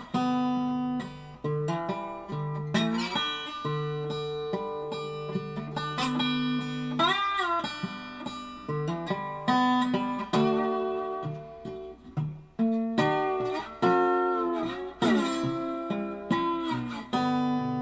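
Acoustic slide guitar music: plucked notes ringing over a repeated low bass note, with notes gliding up and down in pitch now and then.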